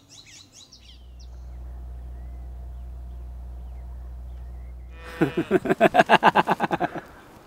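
Birds chirping briefly, then a steady low hum, and from about five seconds in a man laughing heartily in quick, loud pulses for about two seconds.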